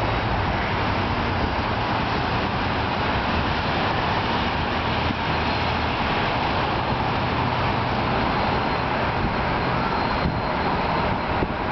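Steady rumble of a BNSF maintenance-of-way train of yellow Loram track machines pulling along the yard track, with a low engine drone.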